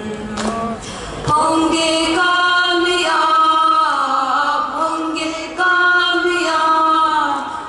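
A group of women singing together as a choir, holding long notes. A new phrase starts about a second in and another just past the halfway point.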